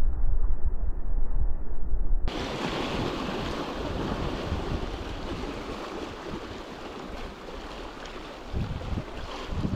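Wind buffeting the microphone as a low rumble; about two seconds in this gives way to small waves washing and fizzing over rocks close by, with gusts of wind on the microphone near the end.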